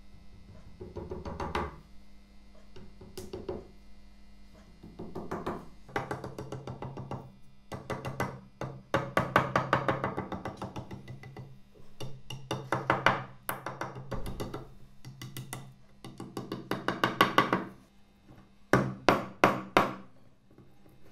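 A hammer tapping quickly and lightly along a metal inlay strip set into a wooden staff, seating it into its groove. The taps come in runs of many quick blows with short pauses between them.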